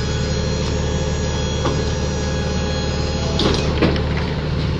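A truck's machinery running with a steady low hum, with a few light knocks and clatters about halfway through and again near the end.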